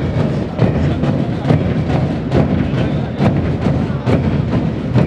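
Parade marching music with a steady drum beat, struck a little over twice a second.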